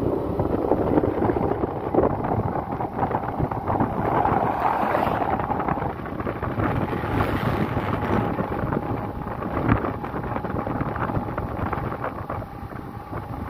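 Engine of a moving road vehicle running steadily, mixed with wind rushing over the microphone while riding.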